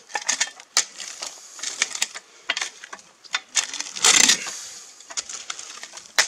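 A steel spade scraping into and scooping gravelly soil, with repeated gritty crunches and small stones rattling as earth is shovelled in around a buried bucket. The longest, loudest scrape comes about four seconds in.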